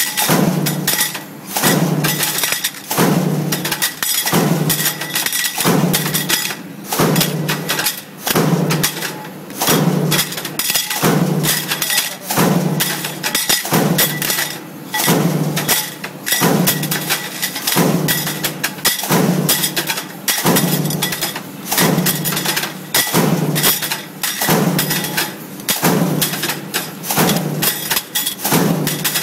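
Industrial stamping press running in continuous production, cycling about once every one and a half seconds. A low pulse comes with each stroke, amid constant metallic clattering and knocking.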